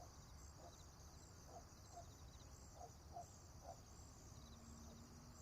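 Faint farmyard morning ambience: a steady high chirring chorus of insects or birds, with a few short, low animal calls scattered through, over a low background rumble.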